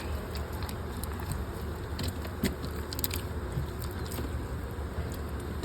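Beeswax honeycomb being broken off and handled, giving scattered crackles and clicks over a steady low rumble.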